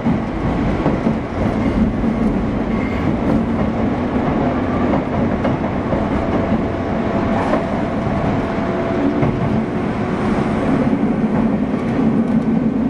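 Running noise inside a JR West 201 series electric train, heard from the MoHa 200 motor car as it travels: a steady rumble of wheels on the rails, with no chopper-control whine because this car does not carry the chopper.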